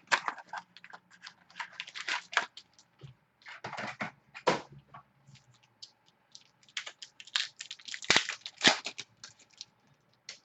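Plastic wrapping crackling and tearing in quick, irregular bursts as a box of football trading cards and its packs are opened.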